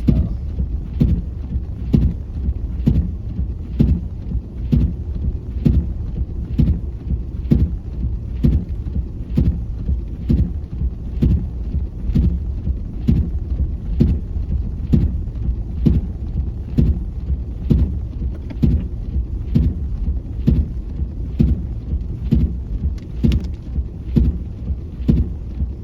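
Windshield wipers knocking at each end of their stroke, about twice a second, over the steady low rumble of the car driving on a snow-covered road.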